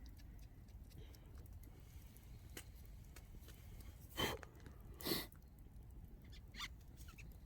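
Quiet handling sounds while food is prepared: a few faint clicks and two brief, louder knocks about four and five seconds in, over a low steady rumble.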